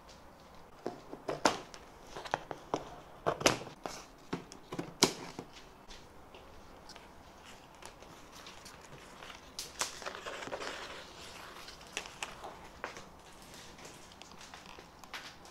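Plastic packing straps on a cardboard box being snipped with scissors and pulled off: a series of sharp snaps and clicks in the first five seconds, then a stretch of scraping and rustling about ten seconds in, with a few more clicks after.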